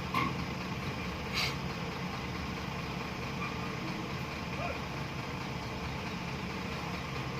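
A backhoe's diesel engine running steadily, with two short sharp clanks in the first two seconds.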